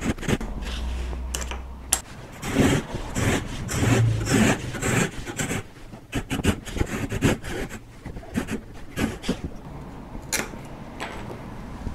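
Handsaw cutting through softwood to form a tenon, a run of quick back-and-forth rasping strokes, heaviest a few seconds in and lighter after, with a few sharp clicks near the end.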